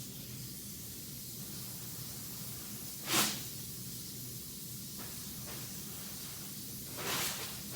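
Water running steadily from a sink tap during hand-washing, with two short hissing bursts, one about three seconds in and a longer one near the end.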